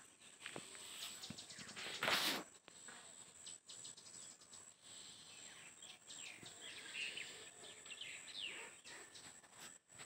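Rural ambience: a steady high-pitched insect drone with a few short bird chirps near the end, and one brief loud rustle about two seconds in.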